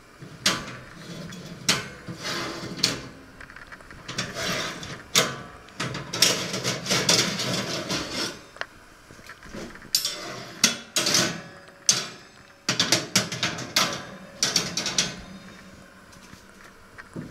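Wire oven racks being slid along their metal runners and handled, with repeated metallic clanks, rattles and scraping. The clatter stops about two seconds before the end.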